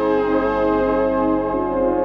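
Moog Muse analog polyphonic synthesizer playing sustained chords with a rich, brassy tone, moving to a new chord near the end.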